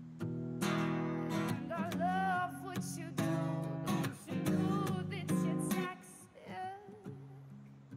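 Background music: strummed acoustic guitar chords with a wavering melody line over them, thinning out near the end.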